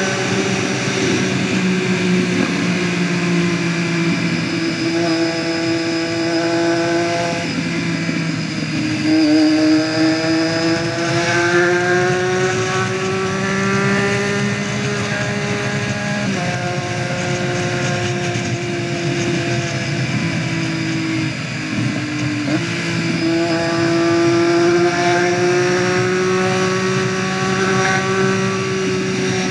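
Motorcycle engine running under way, its pitch climbing with the revs and dropping sharply at gear changes, about 9 and 16 seconds in, before climbing again.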